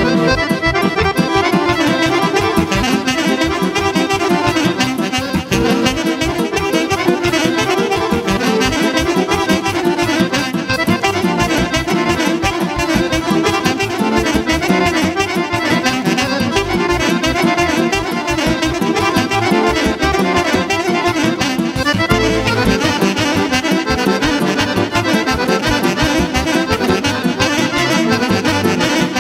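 Live Serbian folk band playing a Vlach kolo dance medley: accordion leading over a drum kit and keyboard with a steady beat.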